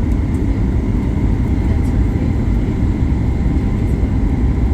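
Steady rush of airflow and engine hum inside the cabin of a Boeing 737 MAX 8 on final approach, its CFM LEAP-1B engines running with gear down and flaps and slats extended. Faint steady whine tones sit above the low rumble.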